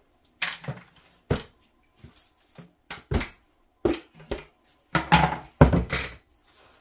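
A plastic pail being handled on a countertop and its snap-on lid pried off and set down: a series of sharp plastic knocks and clicks, loudest about five seconds in.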